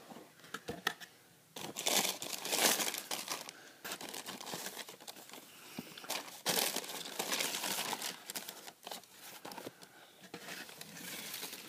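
Tissue paper inside a shoebox crinkling and rustling as hands open and pull it back, starting about a second and a half in, with a second spell of rustling midway.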